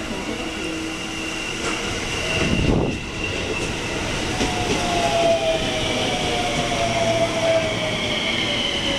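JR West 223 series 2000-subseries electric train running in alongside the platform. There is a rush of air and rumble as the front car passes about two and a half seconds in. After that, the traction motors whine, falling steadily in pitch as the train brakes to a stop.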